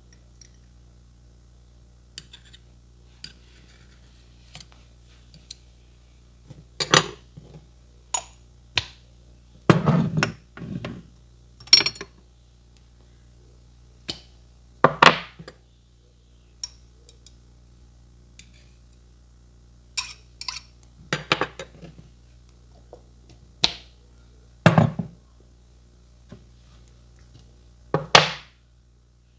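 Sharp taps and knocks at uneven intervals, about a dozen of them, some with a slight clink, over a steady low hum.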